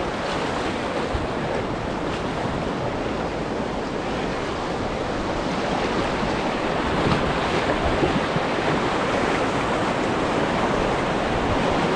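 Steady rushing of whitewater in river rapids, getting a little louder about halfway through.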